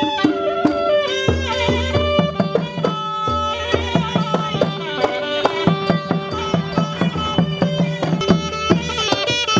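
Traditional Thai-style music: a held melody line that slides between notes, over a quick, even hand-drum beat and a low bass.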